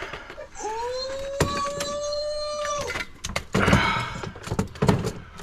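A drawn-out vocal whine that rises briefly and then holds steady for about two seconds, followed by a few heavy, noisy breaths, with light clicks and knocks throughout.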